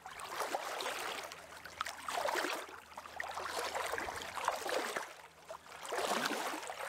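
Water washing and lapping, swelling and fading about every two seconds.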